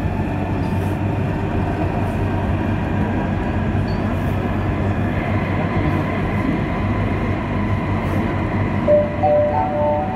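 Madrid Metro Line 4 train running steadily through a tunnel, heard from inside the carriage. Near the end, a few short high tones sound one after another.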